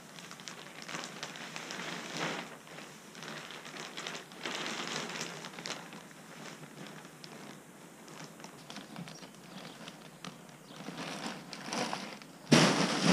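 Plastic-wrapped bales of hemp wool insulation being handled and carried, the plastic packaging crinkling and rustling in uneven swells, with a loud thump near the end.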